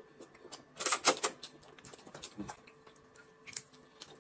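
Noodles slurped into the mouth in one short, loud burst about a second in, with a smaller slurp or mouth noise near the end and small clicks of chopsticks and spoon in between.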